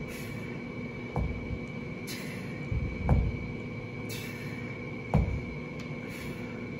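A person doing one-arm kettlebell rows: a short hiss and a low thud in turn, each about every two seconds, over a steady hum.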